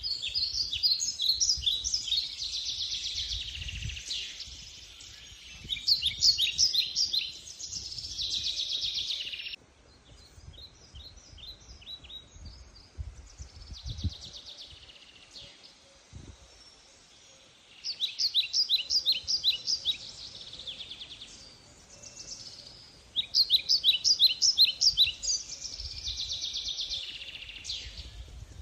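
Songbirds chirping and trilling in bursts of quick repeated notes. The singing breaks off abruptly about a third of the way in, continues faintly, then returns strongly twice near the end.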